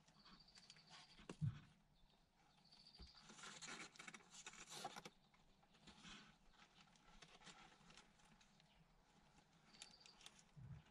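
Near silence, with faint rustling and soft clicks as a litter of newborn kittens squirms on plastic bags in a cardboard box. A dull thump comes about a second and a half in, and the rustling is strongest around four to five seconds in.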